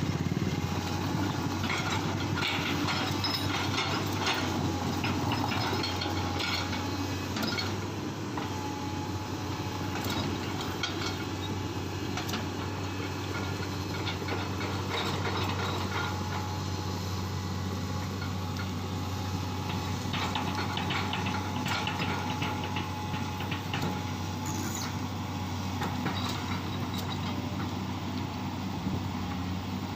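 Excavator's diesel engine running steadily, with scattered metallic clanks and knocks from the machine at work.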